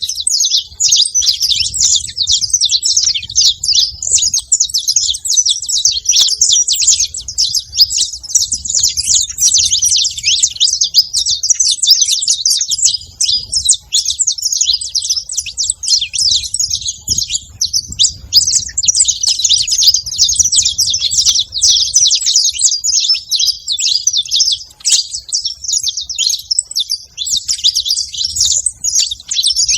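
Saffron finches chirping and calling in a dense, continuous chatter of quick high notes that overlap without a break.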